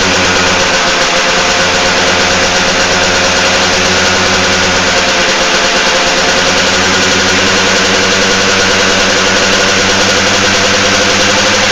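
Two-stroke single-cylinder motorcycle engine, built on a Suzuki RC100 block with a Satria R carburettor, RGR cylinder head and a doubled RXZ reed valve, idling steadily and loudly.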